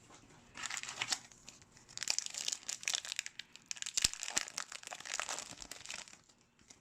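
Wrapper of a 2019-20 MVP hockey card pack being torn open and crinkled, a stretch of crackly rustling with many small clicks and one sharp tick about four seconds in.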